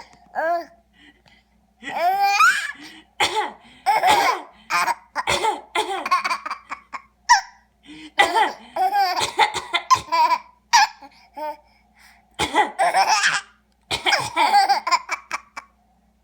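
A baby laughing in repeated bouts of high-pitched belly laughs, with short coughs from someone else between the bouts setting the laughter off.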